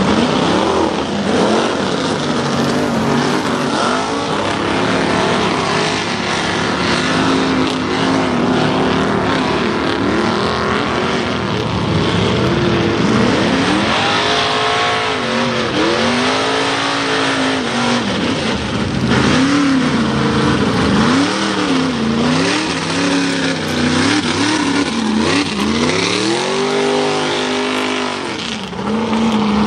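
Mega mud truck engines revving hard in a mud bog, the pitch swinging up and down again and again as the throttle is worked, over the steady running of several trucks.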